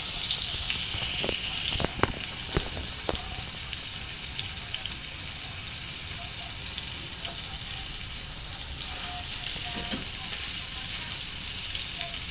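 Steak sizzling as it fries in a pan, a steady hiss. A few sharp clicks of a utensil come in the first three seconds.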